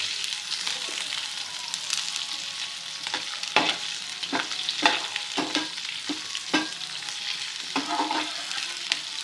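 Split green chillies and whole spices sizzling in hot fat in a pan over a low flame, with a steady hiss. A utensil knocks against the pan several times in the middle as they are stirred.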